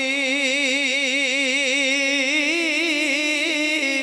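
A man's voice holding one long sung note with an even, wavering vibrato: the drawn-out end of a chanted line of Punjabi devotional verse.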